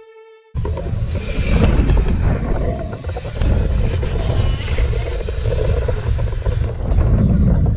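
Wind rushing over the microphone of a camera mounted on a BMX bike riding down a dirt track. It is a loud, steady rumbling noise that cuts in abruptly about half a second in.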